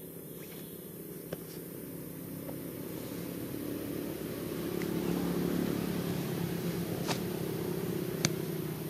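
A low, steady engine hum of a motor vehicle that grows louder to a peak about halfway and then eases off. A sharp click comes about a second in, and two more come near the end.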